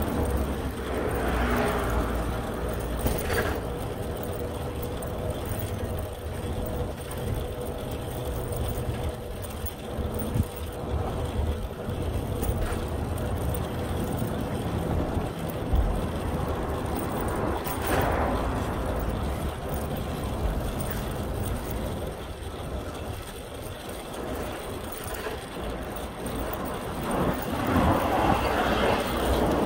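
City street noise heard while riding a bicycle: a steady low rumble, with louder traffic noise swelling past about 18 seconds in and again near the end.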